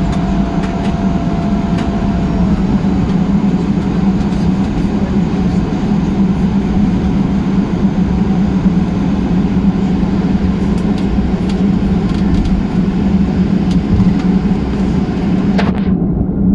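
Steady cabin noise inside a Boeing 737-800 taxiing after landing: a strong low drone under an even hiss.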